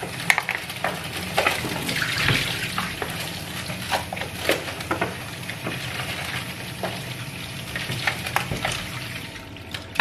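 Kitchen tap running into a stainless steel sink as cauliflower and broccoli florets are rinsed under it, with the crinkling of a plastic bag and the light knocks of the florets being handled.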